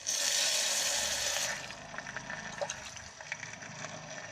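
Water poured into hot fried masala in an electric kettle: a loud hiss for about a second and a half, which then settles into a quieter sizzle with small crackles.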